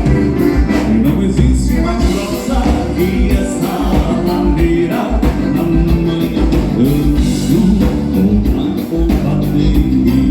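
Live gaúcho regional band playing a bugio, with a voice singing over a steady beat.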